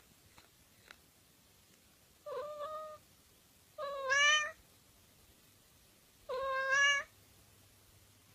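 Tabby-and-white domestic cat meowing three times, the second and third meows louder than the first and rising in pitch toward their ends.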